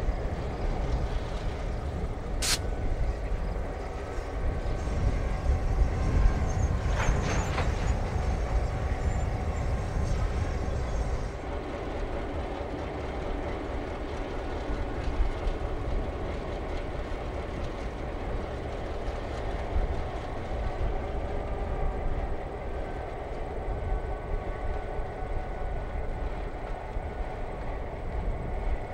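Two EMD two-stroke diesel locomotives, a GP9 and a GP18, running steadily as they slowly pull a cut of hopper cars past, a continuous low engine rumble. A sharp click comes about two and a half seconds in, and a short run of clanks comes around seven seconds.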